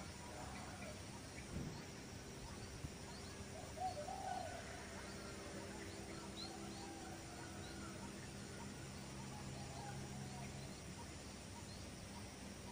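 Faint rural outdoor ambience: scattered short bird calls over a steady low hum, with a single knock about one and a half seconds in.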